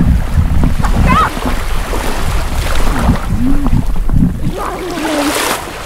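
Wind buffeting the microphone over shallow sea water, with indistinct voices heard on and off.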